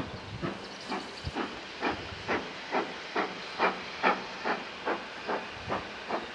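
Steam locomotive working under steam, its exhaust beating in an even, steady chuff at a little over two beats a second.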